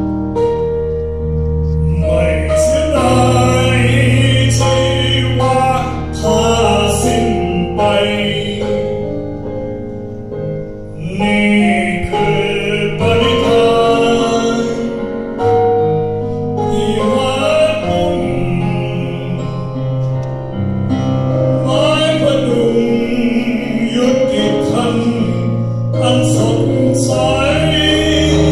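A man singing a slow ballad live into a handheld microphone, in phrases of a few seconds, over electronic keyboard accompaniment with steady held bass notes.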